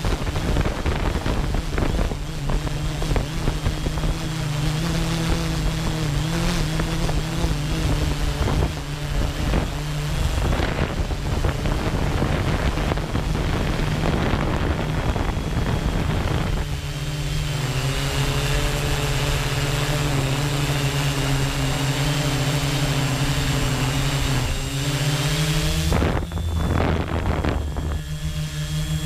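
Quadcopter drone's motors and propellers humming steadily, with a high whine above the hum and wind buffeting the microphone; the pitch shifts slightly partway through as the drone changes its flight.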